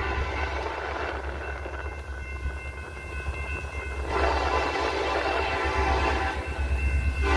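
Diesel locomotive air horn of a Kansas City Southern train sounding for the crossing: a steady chord that is fainter at first, then a louder, fuller blast from about four seconds in until just before the end, over a steady low rumble.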